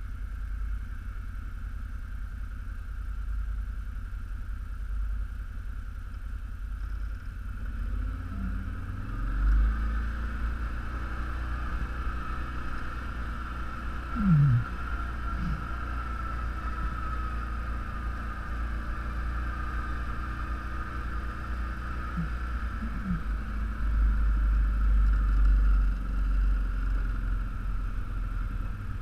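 All-terrain vehicle engine running under way at low trail speed with a steady low rumble, its pitch dipping briefly a few times and swelling louder about three-quarters through.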